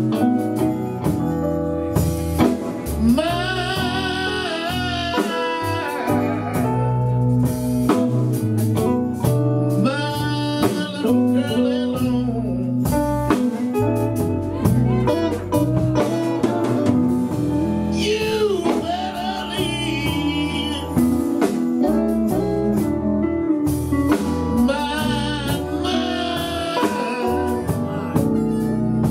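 Live blues band playing, with electric guitar and singing over a steady bass and drum groove; the lead notes bend and waver with vibrato.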